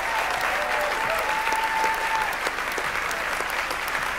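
Audience applauding steadily, a large crowd clapping for a guest coming up to the stage.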